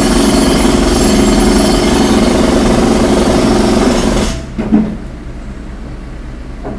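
Jackhammer breaking up ground for about four seconds, starting abruptly and then stopping, followed by a single sharp knock, over the steady low rumble of an idling engine.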